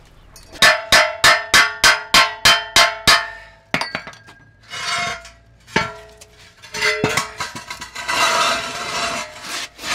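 Welded pair of steel car wheel rims struck about nine times in quick succession, each strike ringing out. Then come a few separate knocks and stretches of scraping as the heavy rims are handled.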